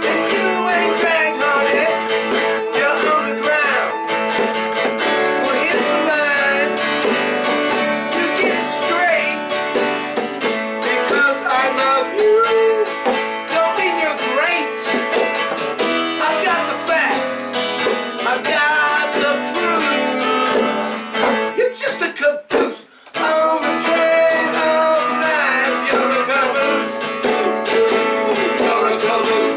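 A small live band playing a country-style tune: acoustic guitar strummed, with electronic keyboard and a hand drum. The playing breaks off for a moment about two-thirds of the way through, then carries on.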